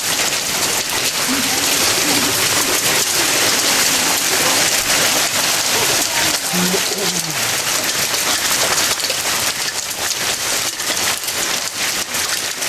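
Hail falling steadily: a dense, even patter of hailstones striking the grass and yard surfaces.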